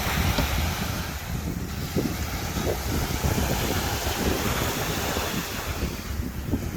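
Wind buffeting the microphone, a gusty low rumble over the steady wash of ocean surf on the beach.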